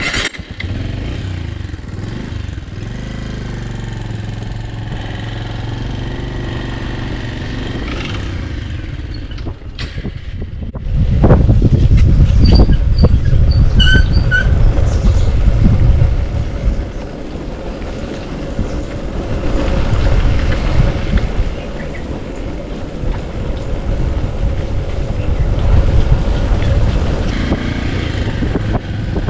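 Bajaj Avenger 160 Street's single-cylinder engine running as the motorcycle rides off, with loud wind rush on the helmet microphone from about eleven seconds in as speed builds.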